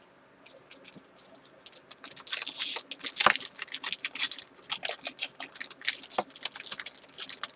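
Foil booster pack of trading cards being crinkled and worked open by hand, a stiff wrapper that resists opening: rapid, irregular crackling with a sharper crackle a little over three seconds in.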